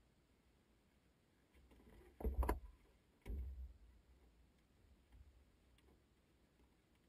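Two brief muffled thumps with rustling, about a second apart, from a flight helmet and cloth cap handled right beside the microphone in an aircraft cockpit. The engine is not running.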